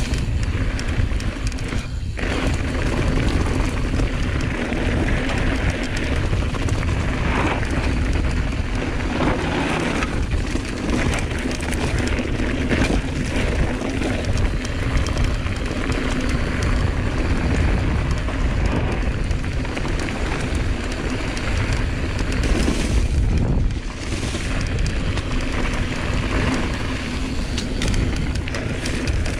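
Giant Reign mountain bike ridden fast down a trail, heard through a bike- or helmet-mounted action camera: a continuous rumble of wind and tyres on the microphone, with scattered knocks and rattles from the bike over bumps.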